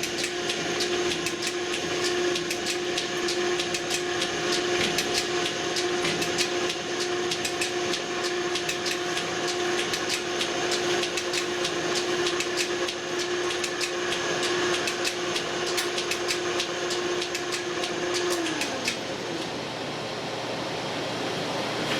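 Metal shaper running: a steady motor hum with rapid, irregular clicking and clatter from the machine's ram and drive. About eighteen and a half seconds in the motor is switched off, its hum falls in pitch as it winds down, and the clatter stops, leaving a steady hiss.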